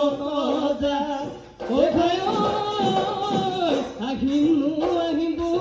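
Live Bihu music: male voices singing long held notes over dhol drum beats. There is a short break about a second and a half in, then a long, higher held note.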